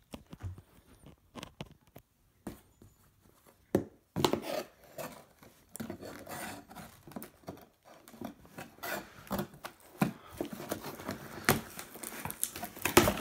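Cardboard shipping box being opened by hand: a few knocks as it is handled, then packing tape being scraped and slit along its seam, and cardboard flaps rubbing and tearing as they are pulled apart, louder near the end.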